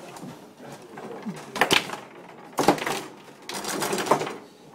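Foosball table in play: plastic figures striking the ball and the rods clattering in their bearings, with two sharp cracks about a second apart near the middle, then a rattling clatter.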